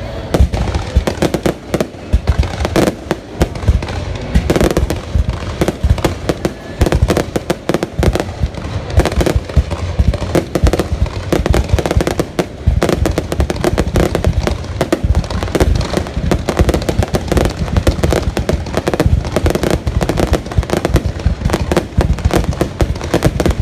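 Fireworks going off in a dense, continuous barrage of bangs and crackles, many per second, with no pause.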